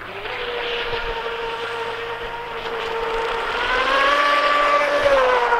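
WL Toys WL915 RC speedboat's brushless motor running out on the water: a steady electric whine over the hiss of the hull and spray. The whine rises in pitch a little past halfway and drops again near the end, getting louder as it goes.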